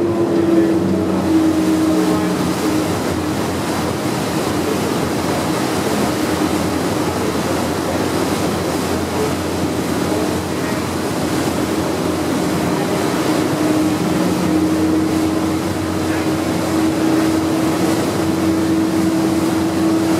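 Staten Island Ferry's engines running under way: a steady hum at one pitch that fades for a while in the middle and comes back, over the even rush of wake water along the hull.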